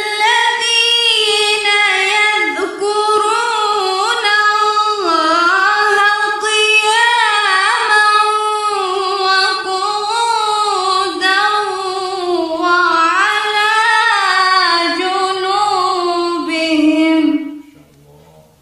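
A woman reciting the Qur'an in Arabic in a melodic tajweed style: one long, ornamented line of held, wavering notes with short breaks for breath, ending about a second before the end.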